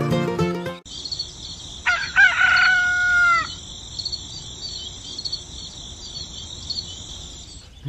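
Music cuts off about a second in. A rooster then crows once, over a steady background of small birds chirping.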